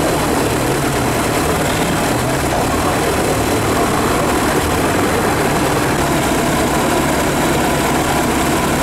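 Off-road 4x4 engines running steadily, a continuous low drone with no sudden changes.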